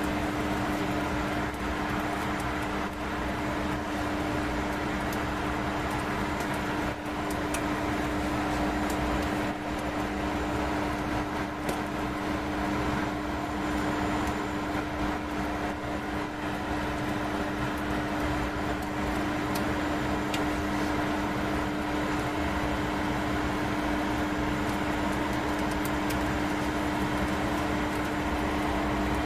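Microwave oven running: a steady electrical hum over the whir of its fan, with occasional faint ticks.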